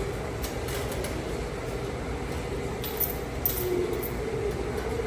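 Steady hum of laundromat machines running, with a few light clicks, the sharpest around three and three and a half seconds in.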